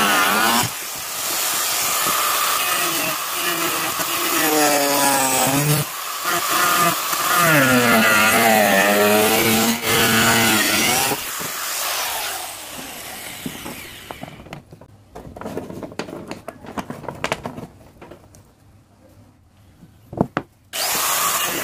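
Angle grinder cutting and shaping a piece of coconut shell, the motor's pitch dipping and rising as the disc bites into the shell and eases off. After about twelve seconds the grinder winds down, leaving quiet scraping and knocks of the shell being handled, and it starts up loud again near the end.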